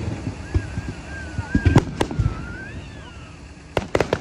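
Fireworks going off: sharp bangs of bursting shells, two close together about a second and a half in and a quick cluster of cracks near the end, over a low rumble. Between the bangs there is a wavering whistle.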